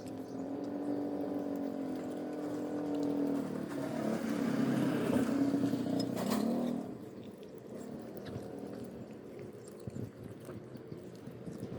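A motor vehicle engine running, growing louder to a peak about five to six seconds in, then dropping away sharply about seven seconds in to a fainter steady hum.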